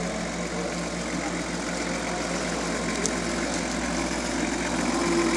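Engine of a modified off-road 4x4 running steadily at low revs while the vehicle crawls down a steep dirt slope, growing a little louder near the end.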